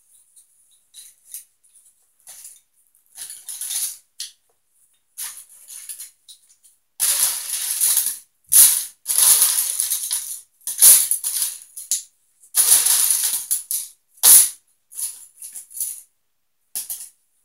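Wooden popsicle sticks rattling and clattering as handfuls are rummaged through and sorted. Scattered clicks at first, then a run of loud rattling bursts in the middle, then scattered clicks again.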